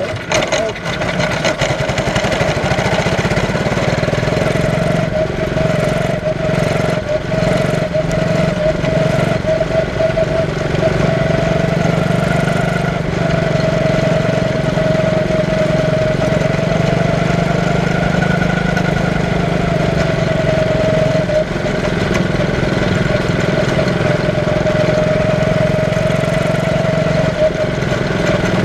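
Quarter midget race car's small single-cylinder engine heard onboard, running steadily at racing speed with its pitch rising and falling slightly as the throttle changes.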